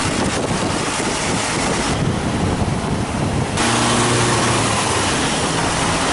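White van driving along a winding forest road, heard from its outside: steady engine and road noise under a heavy rush of wind on the microphone. A low engine hum comes up a little over halfway through.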